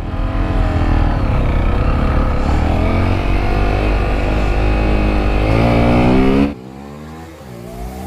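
Motorcycle engine running on a ride, its pitch wavering and climbing as it accelerates toward the end. About six and a half seconds in it cuts off suddenly, leaving a much quieter sound.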